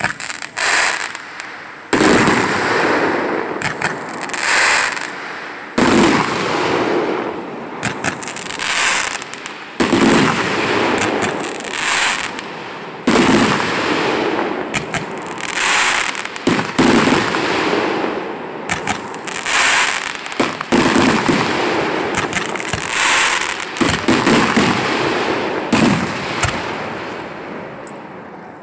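Fireworks display: a continuous run of loud bangs every second or two, with crackling in between, dying down near the end.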